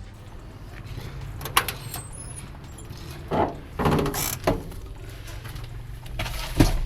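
Several separate mechanical clunks and clicks over a low steady rumble, the sharpest one near the end.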